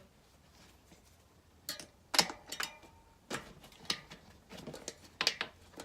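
A string of sharp clicks and knocks, the loudest about two seconds in, from an air hose chuck being fitted and worked onto a bicycle inner tube's valve stem. No steady hiss of air is heard.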